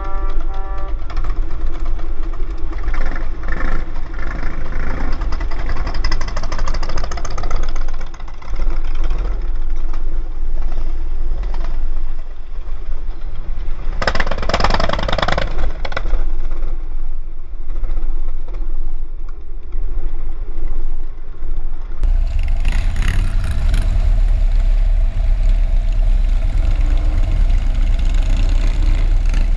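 A group of Harley-Davidson V-twin motorcycles riding slowly together in traffic, their engines rumbling steadily at low speed. About halfway through there is a harsher burst lasting roughly two seconds.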